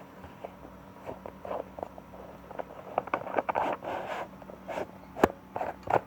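Handling noises from an opened computer power supply: irregular clicks, scrapes and rustles of the metal case and its wiring, with one sharp click about five seconds in.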